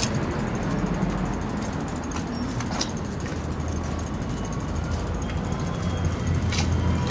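Bicycle rolling along a city sidewalk with street traffic running alongside: a steady rumble and noise, and a low vehicle hum that grows louder in the second half. A few sharp clicks sound along the way.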